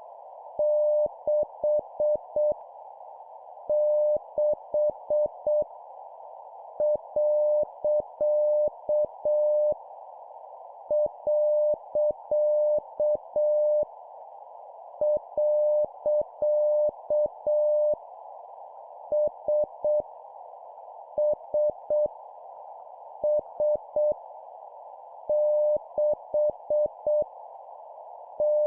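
Morse code (CW) practice at 7 words per minute: a single mid-pitched tone keyed in dots and dashes, sending random letters, numbers and punctuation in short groups with pauses of about a second between them, each character repeated three times. A steady narrow hiss, like a receiver's band noise, runs behind the tone.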